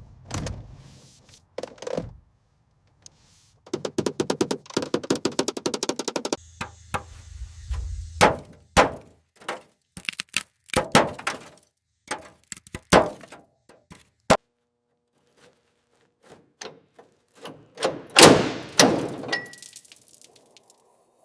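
Workshop work on the car: a run of knocks and clanks, with a burst of rapid clicking about four seconds in, a brief low hum after it, and a heavier cluster of knocks near the end.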